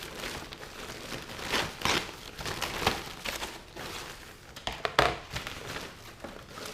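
Plastic crinkling and rustling as parts are handled, with scattered light knocks and taps; the sharpest knock comes about five seconds in.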